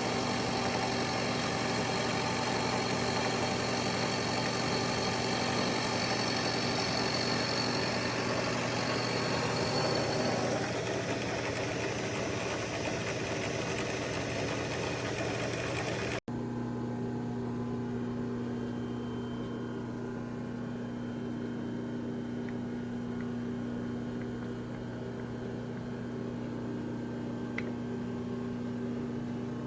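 Milling machine running, its electric motor giving a steady hum. Louder, rushing machining noise lies over the hum for the first half, then breaks off at an abrupt cut about halfway, leaving only the steady motor hum.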